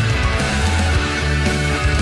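Rock music with guitar and a bass line that shifts note every half second or so.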